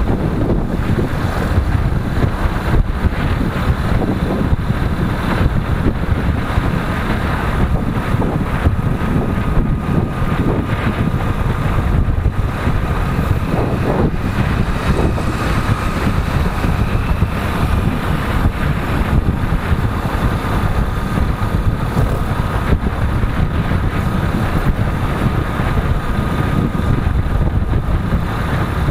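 Wind buffeting the microphone of a moving motorcycle, a steady rush over the sound of road and engine.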